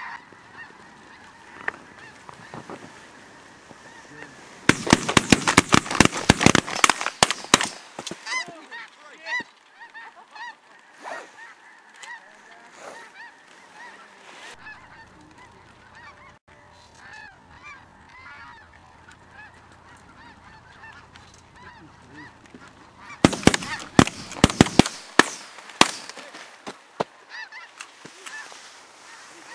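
A large flock of snow geese calls continuously, a dense chorus of honks. Twice, about five seconds in and again about twenty-three seconds in, a rapid run of loud sharp cracks lasting two to three seconds cuts through: a volley of shotgun fire from several hunters.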